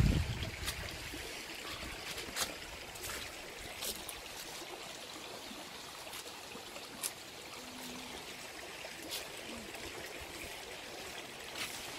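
A shallow stream running over stones, a steady rushing hiss, with a few scattered sharp clicks and snaps. A brief low rumble opens it.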